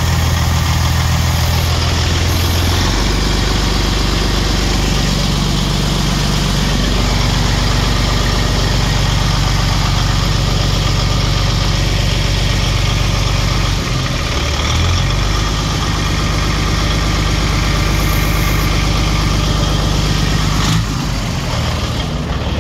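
Diesel engine of a 2006 Peterbilt roll-off truck idling steadily, its low hum shifting a little in pitch a few times.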